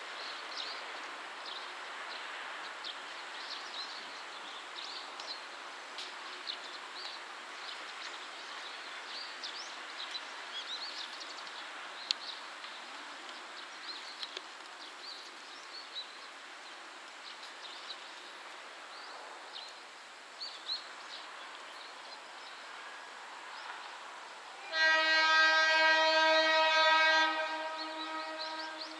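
Horn of a KiHa 47 diesel railcar sounding one long blast of about two and a half seconds, near the end. Before it, a steady outdoor hiss with short high chirps.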